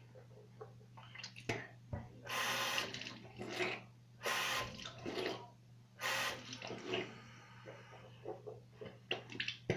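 Water splashing in a bathroom sink as hands scoop it onto a face, in a run of short splashes over several seconds, the biggest near the middle. A steady low hum sits underneath.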